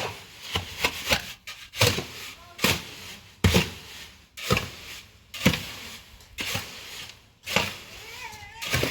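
Repeated sharp knocks, about one a second, with scraping or rubbing in between, like hand work on wood or a hard surface.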